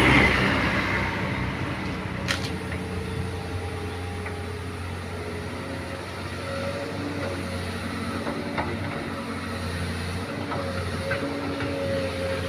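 Doosan excavator's diesel engine running steadily, with a couple of short knocks, one about two seconds in and another past eight seconds.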